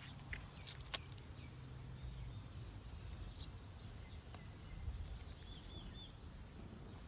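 Quiet background ambience with a faint low hum and a few soft clicks, then a quick run of three high chirps near the end.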